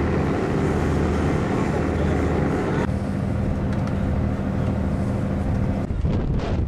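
A steady engine hum with a murmur of voices in the background; near the end it gives way to wind buffeting the microphone.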